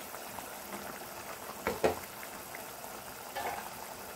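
Coconut kurma gravy boiling hard in an open pan: a steady bubbling, with a couple of short sharp pops a little under two seconds in.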